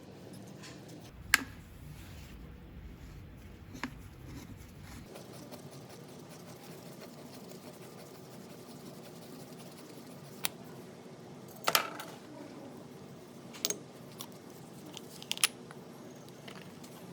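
Small metal parts and tools clinking as they are handled and set down while the air angle grinder is taken apart: about six separate sharp clicks spread out with long gaps, the loudest about a second in and a cluster in the last third.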